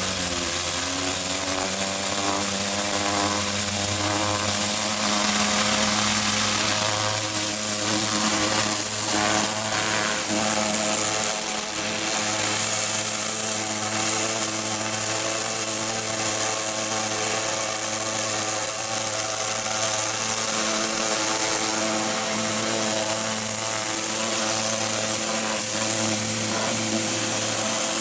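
Petrol pressure washer running steadily, its engine humming under the hiss of the high-pressure water spray.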